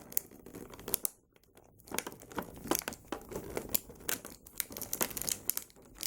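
Plastic action-figure packaging crinkling and clicking in irregular bursts as it is handled and the figures are worked free of the tray, with a short pause about a second in.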